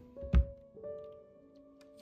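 Soft instrumental background music with slow sustained notes, and a single loud thump about a third of a second in, like something set down or knocked against a hard surface.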